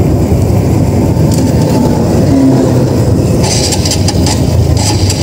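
TVS Metro Plus 110 cc motorcycle ridden along a road, heard from a helmet-mounted microphone: a steady rumble of wind and engine, with a few brief ticks and rattles near the end.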